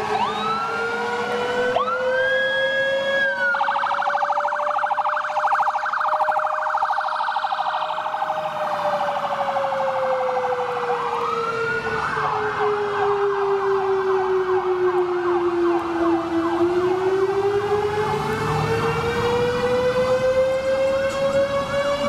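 A mechanical fire siren winds slowly up, holds, winds down and climbs again, under the electronic sirens of a responding fire engine, rescue truck and ambulance. The electronic sirens wail, switch to a rapid pulsing, and after a short lull go into quick yelps.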